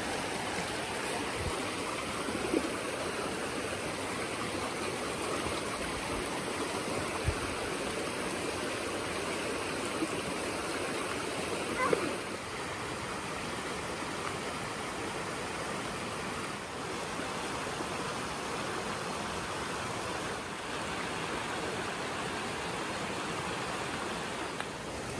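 Steady rushing of a mountain stream, with a few brief knocks along the way.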